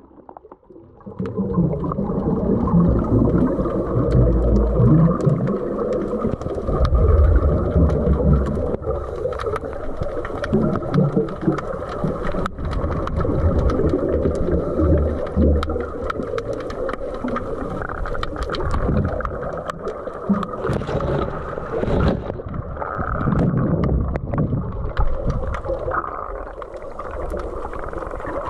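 Muffled underwater noise heard through a submerged camera: continuous low rumbling and gurgling of moving water and bubbles, with small clicks throughout. It goes briefly quiet just at the start as the camera goes under the surface.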